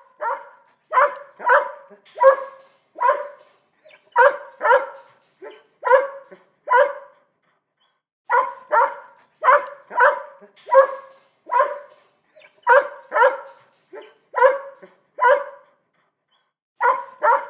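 Small dog barking over and over: short high-pitched barks, about two a second, in runs broken by two pauses of about a second.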